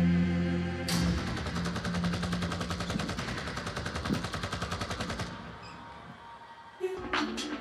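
A choir's held closing chord, cut off about a second in by rapid automatic gunfire, a machine-gun sound effect that runs about four seconds and fades away. Electronic dance music with a steady beat starts near the end.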